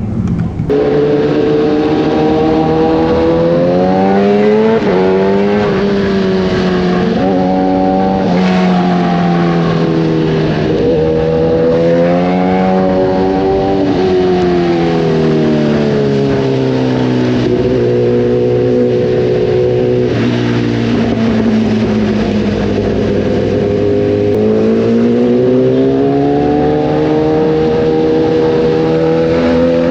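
Kawasaki ZX-10R inline-four engine through an Arrow racing exhaust, under way. Its pitch climbs and drops repeatedly as it accelerates and shifts up, then falls away, holds steady for several seconds, and climbs again near the end.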